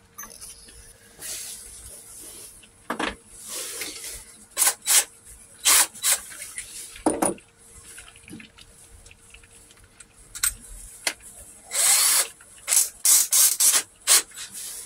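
Cordless drill being readied: a run of short clicks and rattles as the drill is handled and a bit is tightened into its chuck, with a longer burst of noise near the end.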